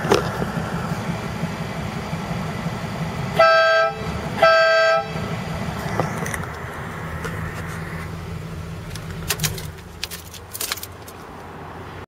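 Two short blasts, about half a second each and a second apart, from a set of cheap electric air horns on a Chevrolet Caprice wagon, over the car's engine running steadily through headers and a Magnaflow exhaust. A few sharp clicks near the end.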